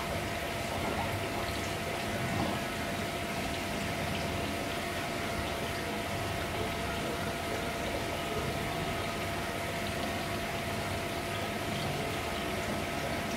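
Aquarium aeration and pump running: a steady wash of bubbling, running water with a faint constant tone under it.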